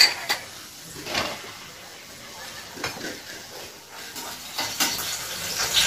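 Dishes and utensils being handled on a kitchen counter: a handful of separate clinks and knocks, the sharpest right at the start, with quiet gaps between.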